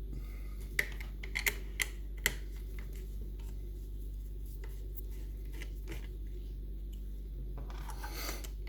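A handful of sharp metallic clicks and taps in the first couple of seconds as a picked Union Strongbolt lever mortice lock and its tools are handled, then a steady low hum with a short rustle near the end.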